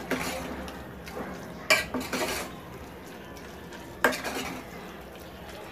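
A spatula stirring and scraping keema masala frying in a pressure cooker pot, knocking sharply against the pot twice, about one and a half and four seconds in, over a steady sizzle.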